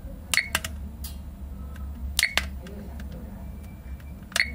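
Sharp clicks of the plastic buttons on a digital alarm clock being pressed, in three quick groups about two seconds apart, as the snooze interval is stepped up.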